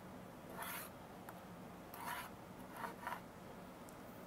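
A fingertip drawing letters through a thin layer of flour on a baking tray: a few short, faint scraping strokes.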